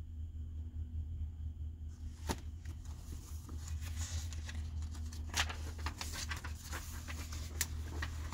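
Paper pages of a large bound book being handled and turned, rustling and crinkling with irregular sharp clicks from about two seconds in, over a steady low hum.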